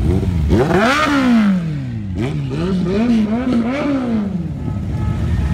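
Motorcycle engine revved up and let fall, then blipped up and down about five times in quick succession before dropping back.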